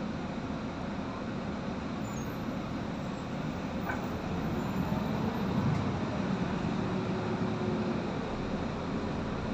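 Inside the cabin of a Solaris Urbino 18 III articulated diesel city bus under way: a steady low drone of engine and road noise, growing a little louder about halfway through.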